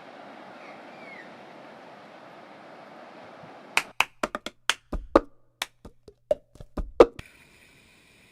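Steady background noise, then about halfway through a run of a dozen or so sharp, irregular knocks or taps over about three seconds, after which it falls nearly quiet.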